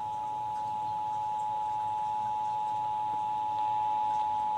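Emergency Alert System attention signal, the two-tone alert, sounding from a radio's speaker during a Required Monthly Test. It is a steady beep of two pitches held together, unbroken throughout.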